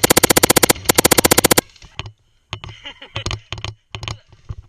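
Airsoft gun firing a rapid full-auto burst of evenly spaced shots, with a short break about three quarters of a second in and stopping about a second and a half in. Scattered sharp clicks and knocks follow.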